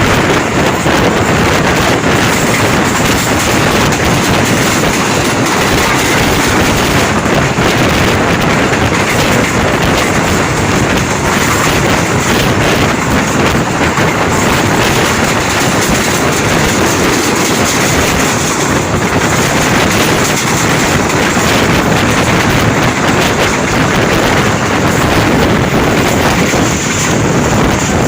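Steady, loud noise of a passing railcar: wheels running on the rails, mixed with wind noise on the microphone.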